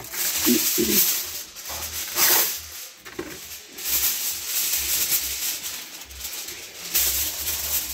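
Aluminium foil rustling and crinkling in irregular bursts as a sheet is pulled from a Reynolds Wrap roll and folded around a foil-wrapped parcel.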